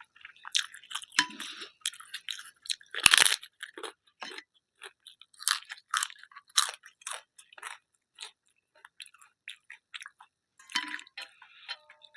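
Close-miked eating: irregular chewing with crisp crunches of papad, one loud crunch about three seconds in.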